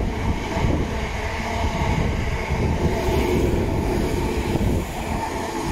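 Electric multiple-unit passenger train running past along the platform: a steady rumble of wheels on rail with faint steady tones over it. It eases off a little near the end as the last carriages go by.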